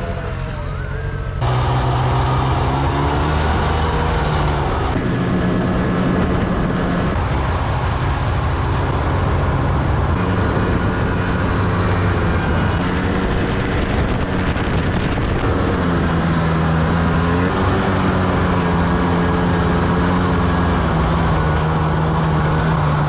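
Snowmobile engine running under way, its pitch rising and falling with the throttle, changing abruptly a few times.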